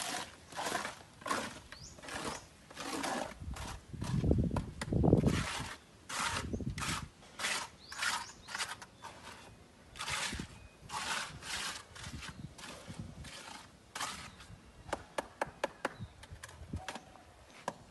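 Gritty scraping strokes repeating about twice a second, with a louder, deeper stretch about four to five seconds in.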